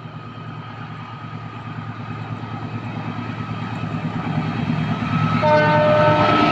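A CC206 diesel-electric locomotive approaching, its engine rumble growing steadily louder. About five and a half seconds in, it sounds a held multi-note horn chord.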